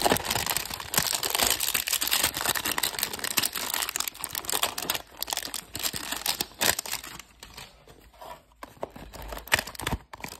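Paperboard trading-card hanger box being handled and opened by hand: dense crinkling and rustling of the cardboard with many small clicks and scrapes, busy for the first several seconds and sparser near the end.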